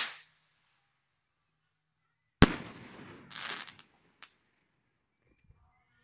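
Firework rocket: its launch whoosh cuts off right at the start, then about two and a half seconds later a single sharp bang as it bursts, followed by a hissing, crackling tail and a couple of small pops.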